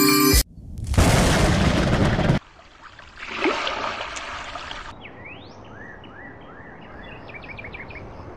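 Edited intro sound effects: a loud explosion-like burst lasting about two seconds, then a softer whoosh, then a run of short rising electronic chirps that quicken near the end.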